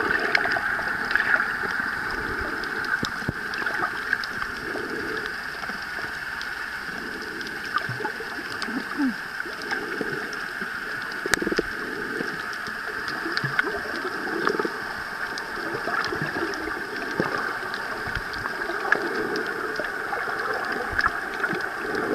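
Sea water gurgling and sloshing steadily, with scattered small clicks and splashes.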